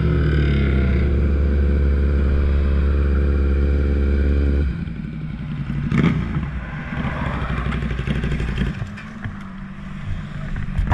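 Inline-four engine of a 2012 Kawasaki ZX-6R with an M4 Tech 1 exhaust running steadily at low revs as the bike rolls to a stop. A little under halfway through the steady note cuts off, leaving a quieter, uneven engine rumble and a single clunk.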